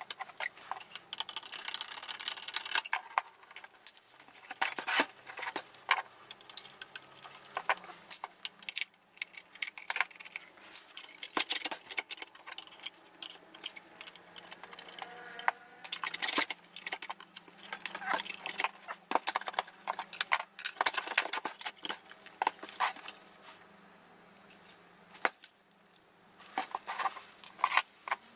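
Irregular metallic clinks, clatters and rattles of hand tools, screws and aluminium modules being handled as an avionics transceiver cabinet is taken apart.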